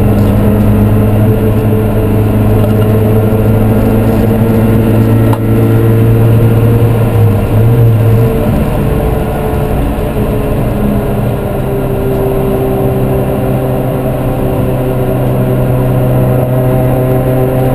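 Supercharged 1.6-litre Toyota 4A-GZE twin-cam four-cylinder of a race Corolla, heard from inside the stripped cabin, running hard on track. The engine note holds steady, then its pitch shifts about eight seconds in, with a brief click about five seconds in.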